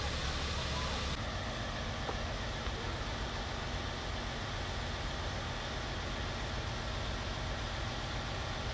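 Parked emergency vehicles' engines idling, a steady low drone with a hiss over it. The sound changes abruptly about a second in, from a strong low hum to a broader, steadier rumble.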